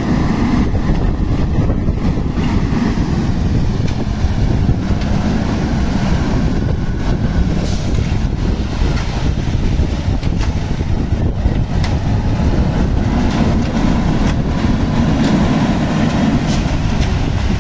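AIMIX AS-4.0 self-loading concrete mixer running on a job site, a loud, steady low rumble from the machine's engine.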